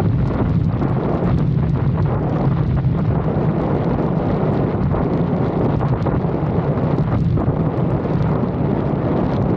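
Lexus IS 250 on the move: wind buffeting the microphone over a steady low drone of road and engine noise.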